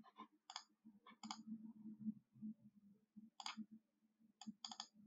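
Computer mouse clicking about eight times, faintly and irregularly, some clicks in quick pairs, over a faint low hum.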